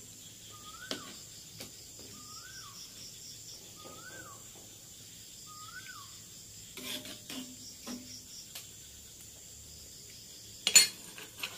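A short whistled call, rising then falling, repeated five times about a second and a half apart over faint steady insect chirping. Later a metal spoon clinks and scrapes against the wok, ending in one sharp clank near the end.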